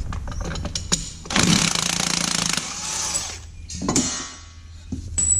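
Cordless drill spinning a socket on a quarter-inch ratchet extension, running out an already-loosened bolt for about a second and a half, then winding down. Sharp metal clinks of socket and wrench come before and after.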